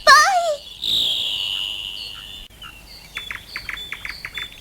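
Bird-like chirping and whistling: a short warbling call, then a long high whistle that falls slightly, then a quick run of thin chirps.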